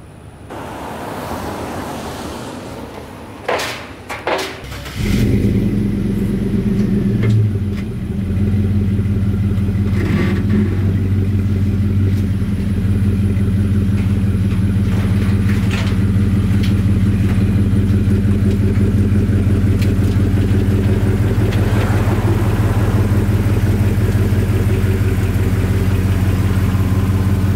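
Chevrolet Silverado 1500 pickup's engine starting about five seconds in after a couple of knocks, flaring briefly, then settling to a steady idle as the truck is unloaded off the trailer.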